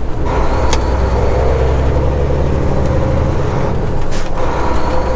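Semi-truck's diesel engine droning steadily with road noise, heard from inside the cab while driving, with two short sharp sounds about a second in and near four seconds in.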